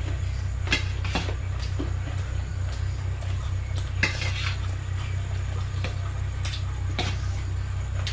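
A spoon clinking and scraping against a dish in short, scattered clicks while eating, over a steady low hum.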